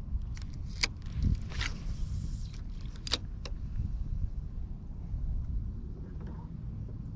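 Wind rumbling on the microphone, broken by two sharp clicks, about one second and three seconds in, and a brief rustle between them.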